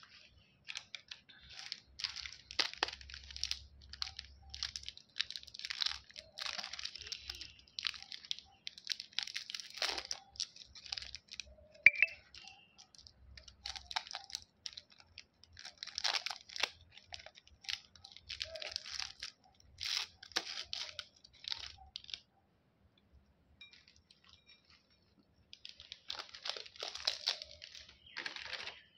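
Candy wrappers being torn open and crinkled in repeated crackly bursts, with a single sharp click partway through and a pause of a few seconds near the end.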